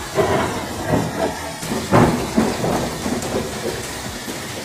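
Thunderstorm sound effect from a thunder overlay clip: several heavy thunder cracks and rumbles in the first couple of seconds, then a steadier rumble over the hiss of rain.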